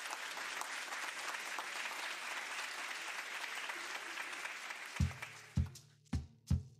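Applause from a small crowd, fading away over about five seconds. Near the end, music starts with a steady low beat of about two thumps a second.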